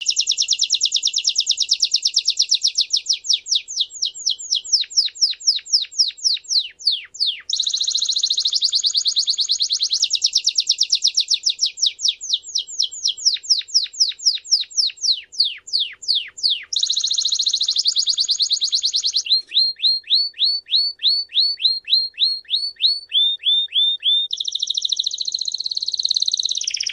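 Belgian canary singing a continuous song built of tours: fast rolling trills alternating with runs of descending whistled notes, several a second, each tour lasting a few seconds before the next begins.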